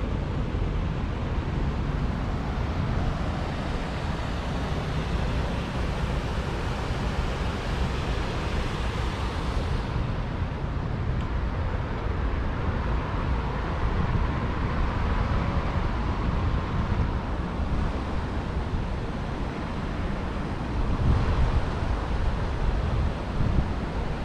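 Steady street ambience of passing road traffic, with wind rumbling on the microphone and a few louder gusts near the end.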